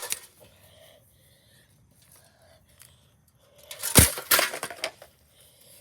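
Metal ceiling fan parts being handled and knocked together: quiet fiddling, then a sharp knock about four seconds in followed by a second knock and a brief clatter.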